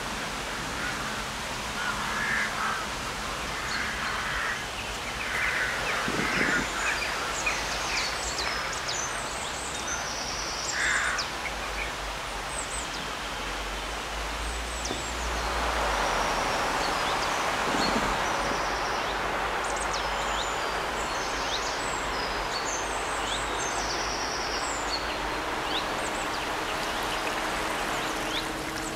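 Outdoor woodland ambience: a small brook rushing steadily, swelling for a few seconds around the middle, with small birds chirping and crows cawing several times in the first ten seconds or so.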